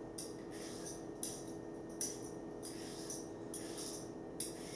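Kitchen utensil work on produce: a run of short, bright scraping or clicking strokes, roughly two a second, over a steady low hum.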